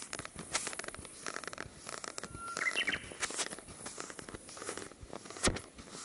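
Japanese bush warbler (uguisu) singing a short phrase, a held whistle that steps up into quicker higher notes, about two and a half seconds in. Scattered clicks and rustles run throughout, with a sharper knock near the end.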